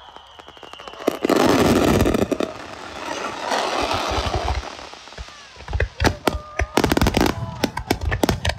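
Fireworks going off: a loud burst about a second in that fades away, then a rapid run of sharp crackling pops from about six seconds in.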